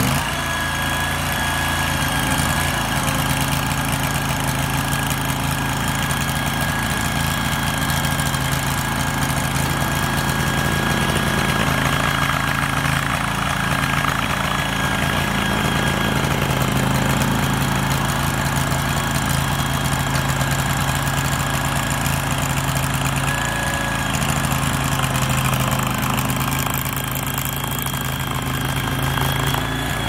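Engine of an AGT Industrial LRT23 mini track loader running steadily as the machine is driven on its tracks and the loader arm raises and tilts the bucket.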